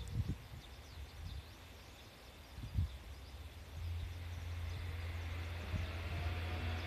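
Small birds chirping and low wind buffeting on the microphone, the strongest gust a little before three seconds in; then, from about four seconds, a steady low rumble with a faint rising tone comes in: the diesel engines of a JR Shikoku N2000 series railcar moving through the depot yard.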